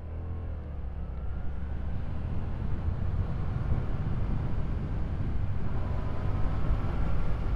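Yamaha MT-07's 689 cc parallel-twin engine pulling under acceleration while riding, its note rising in pitch twice as it revs up through a gear, over a heavy rumble of wind on the lavalier microphone. It grows steadily louder.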